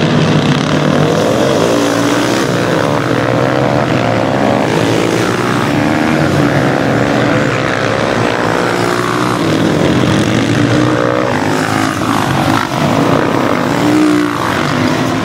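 Several supermoto motorcycles racing past, their engines revving up and dropping back with each gear change, the different bikes overlapping one another.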